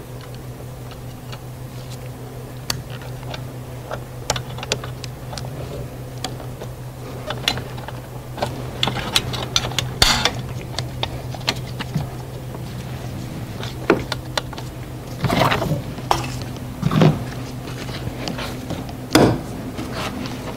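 Scattered clicks, taps and plastic clatter of hands reconnecting the mass airflow sensor plug and the pressure differential sensor hoses in a car's engine bay, with louder bursts of handling toward the end, over a steady low hum.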